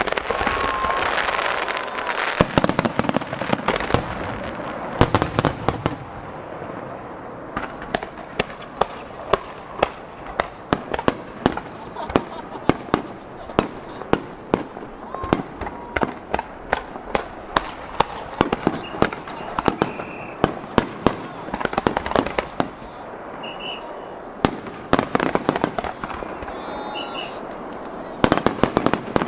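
Fireworks star mine, a rapid-fire barrage of launches and shell bursts with many sharp bangs in quick succession. Dense crackling from the low fan-shaped volleys fills the first couple of seconds and comes back near the end.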